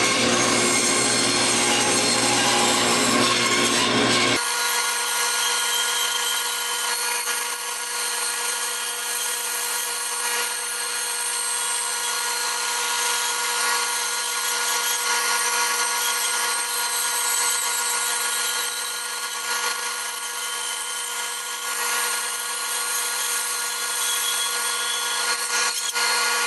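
Benchtop bandsaw running and cutting a thick wooden board along a curve, a steady machine whine over the noise of the blade in the wood. About four seconds in, the low rumble under it drops out abruptly.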